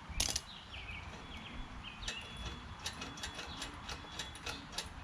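A run of sharp metallic clicks from hand tools on a mower's carburetor: one click near the start, then a quick series from about two seconds in. Birds chirp faintly underneath.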